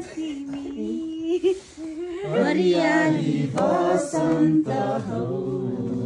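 Unaccompanied singing by a small group of voices in Nepali, with long held notes.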